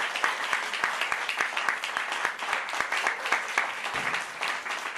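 Audience applauding: many hands clapping steadily without a break.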